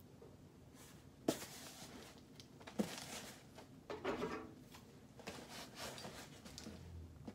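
Handling noise from a cardboard shipping box being moved about: two sharp knocks about a second and a half apart, then some rustling.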